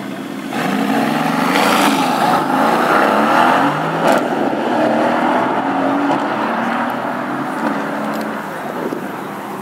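Mercedes-AMG GT's twin-turbo V8 launching hard from a standing start about half a second in, revving up through several gear changes as it pulls away. There is a sharp crack about four seconds in, and the engine sound slowly fades as the car draws off.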